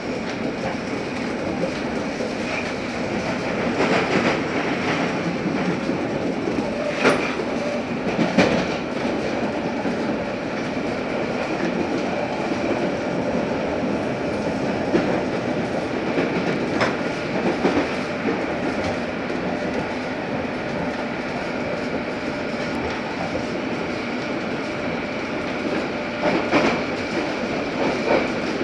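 London Underground S8 Stock train heard from inside the carriage while running, mostly through a tunnel: a steady rumble with a faint steady hum of tones, broken by a few sharp clacks from the wheels on the track.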